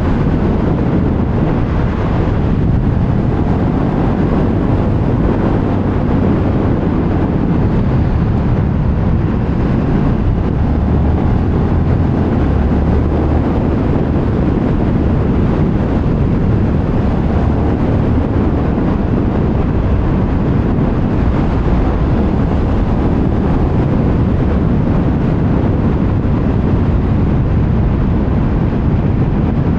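Wind rushing over the microphone with a KTM 1390 Super Duke R's V-twin engine running underneath, at a steady riding speed.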